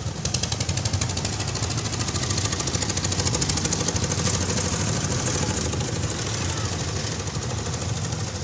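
Single-cylinder diesel engine of a two-wheel hand tractor running with a rapid, even chugging, growing loudest a few seconds in as it passes close by.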